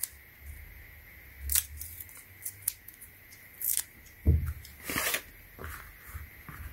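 Handling noises of a roll of masking tape and rubber slide sandals being picked up and moved: a scattering of short, sharp rustles and scrapes, the loudest a little past the middle.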